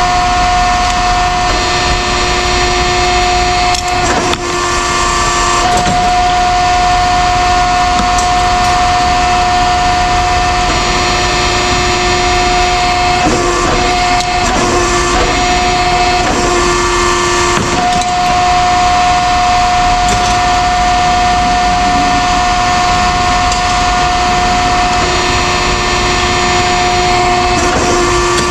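A machine running with a steady whine, its tone dropping out briefly a few times, with occasional knocks.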